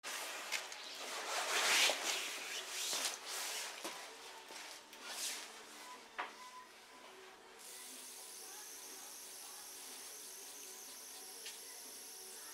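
Rustling and rubbing noises and a click, then a steady high-pitched whine with hiss starting about seven and a half seconds in: a homemade high-voltage multiplier supply switched on, driving a 1B3GT tube at 80–90 kV.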